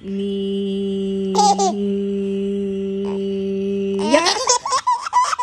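A long, steady held vocal tone like a hum for about four seconds, with a short higher voice breaking in about a second and a half in; then the sound glides upward into a run of high, quickly changing squealing, laugh-like cries.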